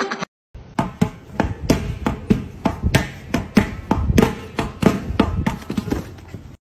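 A steady run of sharp knocks, each with a short falling thud, about three a second, in the manner of a percussion beat; it stops abruptly near the end.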